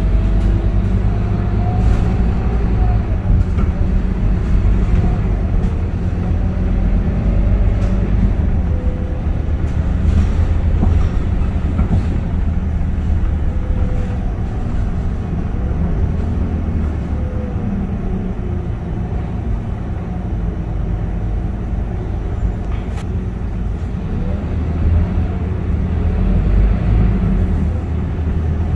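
Scania K230UB city bus under way: its five-cylinder diesel engine rumbles steadily while a fainter whine rises and falls in pitch several times as the bus speeds up and slows, with a few faint rattles.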